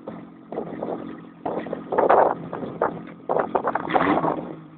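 Small engine on a paddle wheel pontoon boat idling with a steady low hum. Irregular gusts of wind noise on the microphone come and go over it and are louder than the engine.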